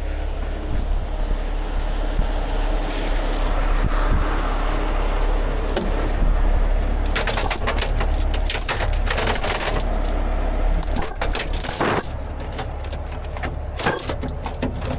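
Steel recovery chain being handled and rigged, its links clinking and clanking in clusters from about halfway through, over a steady low rumble.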